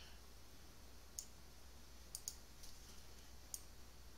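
A few light computer mouse clicks over a faint low hum, two of them in quick succession about two seconds in.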